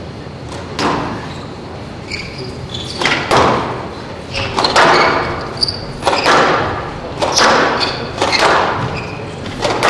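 Squash rally: the ball being struck by racquets and smacking off the court walls, a sharp echoing hit about every second. Short squeaks from the players' shoes on the court floor come between the hits.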